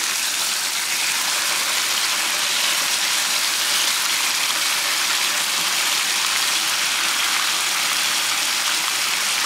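Marinated pork chops and jalapeños sizzling steadily on a hot Blackstone E-Series electric griddle.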